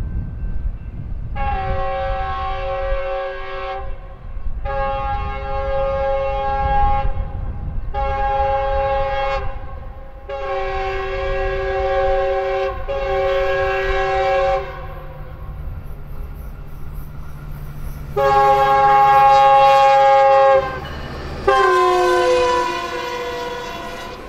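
Metrolink locomotive 935's air horn sounding a chord in seven blasts: long, long, short, long (the grade-crossing signal), then a shorter one, and after a pause two more, the last falling in pitch as the locomotive goes by. The train's engine and wheels rumble underneath. The uploader suspects the horn is broken.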